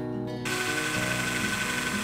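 Cordless drill starting up about half a second in and running steadily with a high whine as it drills a pilot hole into a foam-core dinghy seat. Guitar background music plays underneath.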